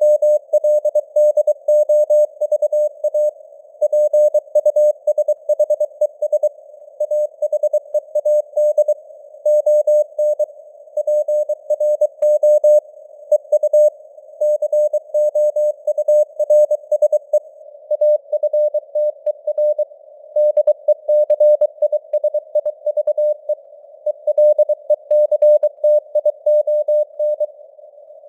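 Morse code news sent at 23 words per minute: a single-pitch tone keyed on and off in dits and dahs, with brief word gaps every few seconds, over a faint band of simulated radio hiss.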